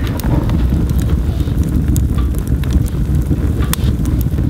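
A freshly lit kindling fire of scrap-wood offcuts burning in the open firebox of a wood stove: a steady low rumble with frequent sharp crackles and pops.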